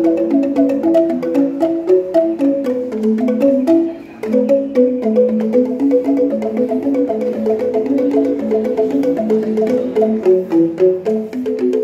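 Angklung, tuned bamboo rattles shaken to make each note, playing a stepping melody with lower notes beneath it, with a brief break about four seconds in.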